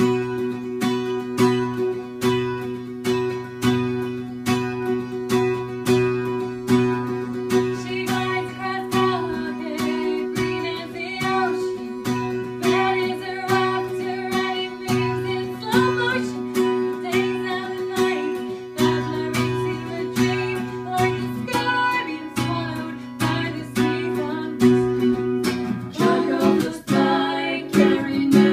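Acoustic guitar strummed in a steady rhythm on sustained chords, with a woman's voice singing a melody over it from about eight seconds in.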